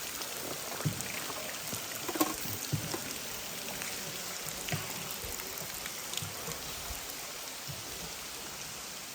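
Steady watery hiss of water dripping and trickling in a limestone river cave, with scattered single drips and small splashes.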